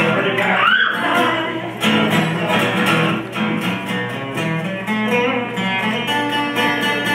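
Guitar playing a blues instrumental passage, note by note, with a brief rising vocal cry about a second in.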